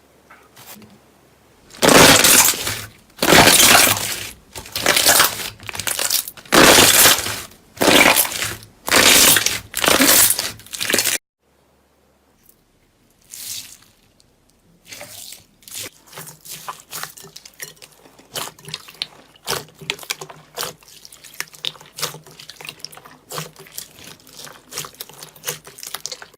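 Slime being worked by hand. First comes a series of about eight loud, noisy strokes, each under a second long. After a short break, a long run of quick crackles and pops follows.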